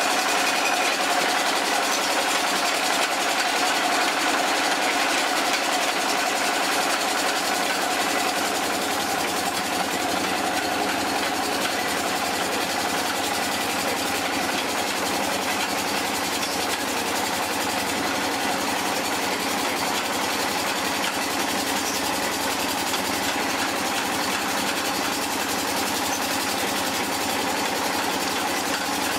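Water-well drilling rig running steadily: a continuous engine and machinery noise that holds level throughout.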